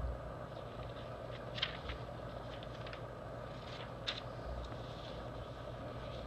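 Pages of an antique newsprint paper being turned and smoothed flat by hand: soft rustling with two short crackles of the paper, about a second and a half in and about four seconds in, over a steady low background hum.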